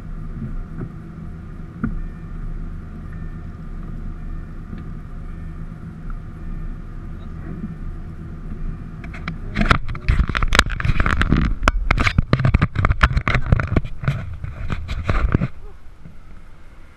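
A car engine idles steadily. From about nine seconds in, the hum is drowned by loud, irregular rubbing and knocking as the camera is handled and taken down, for about six seconds.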